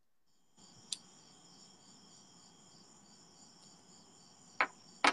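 Faint, steady high-pitched chirring of crickets, starting about half a second in, with a few sharp clicks, the loudest near the end.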